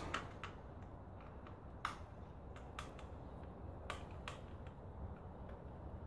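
Scattered faint, sharp clicks of a screwdriver working at the plastic housing of a Lexus GX470 door lock actuator to take it apart, the sharpest about two and four seconds in.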